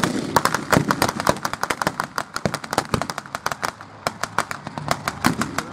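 Blank rifle fire in a mock battle: a rapid, irregular crackle of many shots, several a second, some sharp and close, others fainter and further off.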